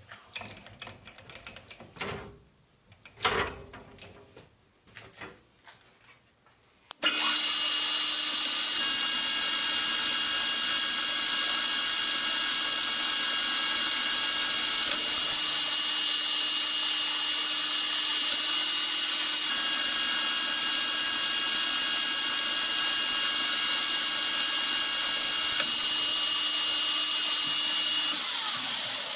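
Metal lathe running with its chuck spinning, turning down an aluminium spacer: a steady whine from motor and gears over the hiss of the cut, starting suddenly about seven seconds in and easing off near the end. Before it, a few light clicks from handling the part and caliper.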